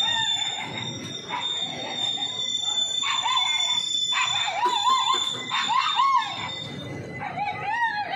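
Dog yelping and howling in a run of short rising-and-falling calls from about three seconds in, over a steady low rumble and a thin high whine.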